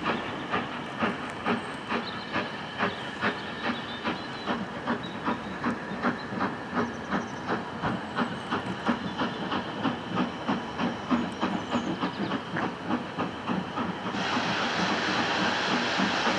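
BR Standard Class 4MT 4-6-0 steam locomotive 75069 pulling away under steam, its chimney exhaust beating two to three times a second and gradually quickening. About fourteen seconds in, a loud steady steam hiss sets in over the beats.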